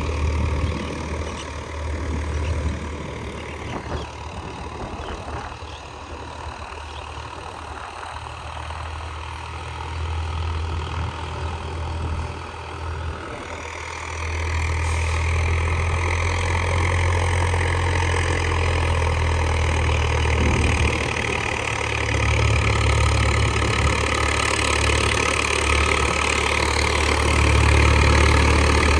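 Swaraj 744 FE tractor's three-cylinder diesel engine running steadily, growing louder about halfway through and staying louder.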